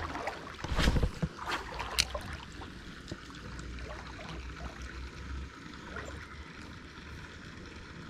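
Steady rush of a small river, with a few sharp knocks and a low thud in the first two seconds.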